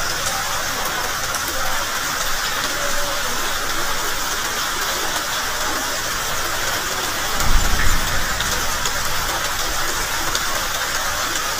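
Steady rain falling, an even hiss, with a brief low rumble about seven and a half seconds in.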